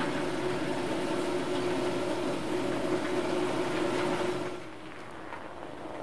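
Electric garage door opener running as the door rises: a steady motor hum that stops about four and a half seconds in, leaving quieter outdoor background noise.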